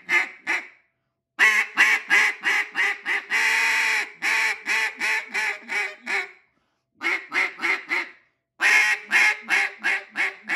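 Double reed duck call (the Nose Dive) blown to imitate a plain hen duck: four runs of quacks. The longest run has a long drawn-out note in the middle and trails off in a fading cadence.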